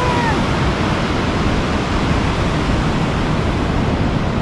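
Ocean surf breaking on a beach, a steady rushing noise with no let-up.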